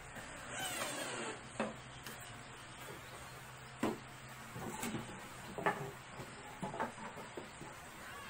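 A cordless drill runs for about a second, driving a screw into plywood, then about half a dozen sharp wooden knocks as the drill is set down and plywood cabinet parts are handled on a wooden bench.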